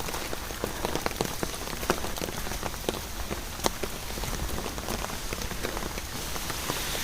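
Steady rain falling, with many sharp, irregular drops tapping close by.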